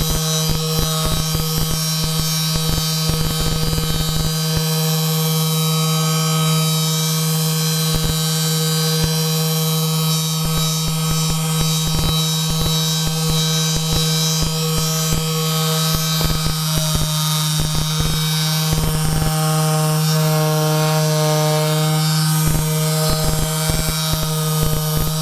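A steady, loud electric hum under background music, with scattered faint clicks.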